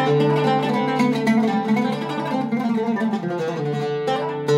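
Zeryab Iraqi-style oud with a cedar top being played solo: a run of quick plucked notes, then a strong note struck near the end and left ringing.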